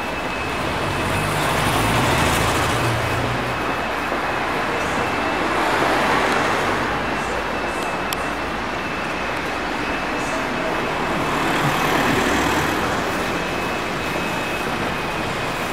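Urban road traffic: a steady rush of passing vehicles, with three cars swelling up and fading away about two, six and twelve seconds in.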